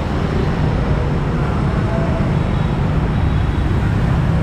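Street traffic: a steady noise of motorbikes and cars going by on a city road.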